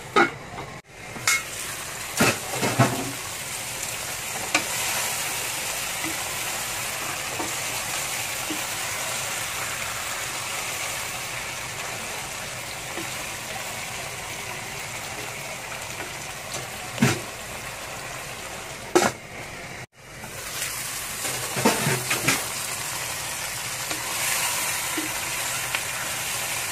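Chicken pieces sizzling steadily as they fry in a wok over high heat, with a utensil scraping and knocking against the wok in a few short bursts near the start and again in the second half as the chicken is stirred.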